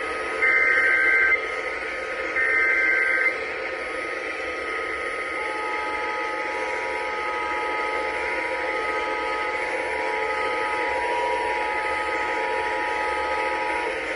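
Two loud screeching bursts of Emergency Alert System digital header data, then, from about five seconds in, the steady two-tone EAS attention signal that announces the next alert. A faint constant whistle and hiss run underneath.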